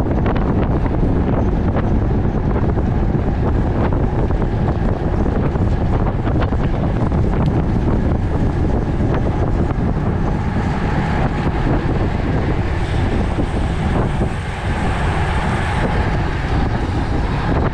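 Wind rushing over a camera microphone on a road bike riding in a racing pack at about 24 to 29 mph. A few light clicks in the first few seconds, and the noise grows brighter in the second half.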